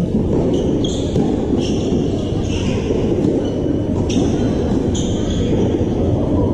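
Tennis ball being struck and bouncing on a hard court during a doubles rally, as a few sharp knocks over a steady low rumble. Several short high squeaks come and go through it.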